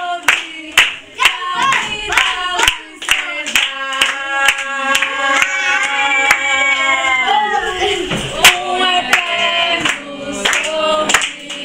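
A group of people clapping in time, about two claps a second, while singing a birthday song together, with one long held note in the middle.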